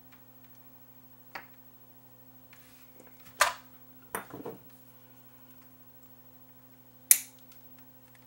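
A few sharp clicks and clacks of small hand tools on a workbench, loudest about three and a half seconds in and again about seven seconds in, the last a snip of side cutters trimming a resistor lead on a circuit board. A faint low steady hum runs underneath.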